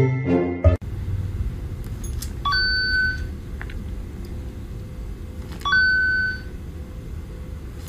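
A smartphone game gives a high electronic beep twice, each starting with a click and held just under a second, over a low steady rumble. A jingly bell music track cuts off just under a second in.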